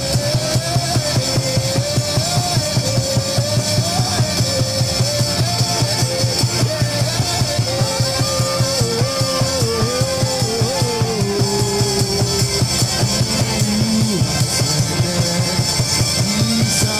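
Live church worship music: a drum kit keeps a fast, steady beat under a single wavering melodic lead line.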